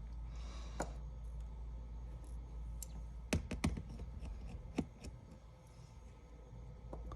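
A few light, scattered clicks and taps from hands and small tools working on the opened iPad's internal parts and connectors, over a low steady hum.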